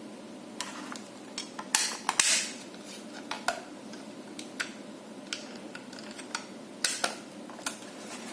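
Handling of the Fluke IntelliTone Pro 200 tone generator and probe: scattered sharp clicks and clatter of hard plastic, with a few louder knocks about two seconds in and near seven seconds.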